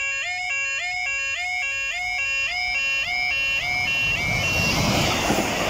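Level crossing warning alarm sounding its two-tone yodel, stepping up and down about twice a second. From about four seconds in, a Class 153 single-car diesel railcar passes over the crossing, and the noise of its wheels and engine rises to drown out the alarm near the end.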